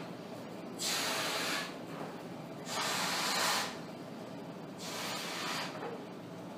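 A person blowing up a balloon by mouth: three puffs of breath pushed into it, each about a second long, the last one softer.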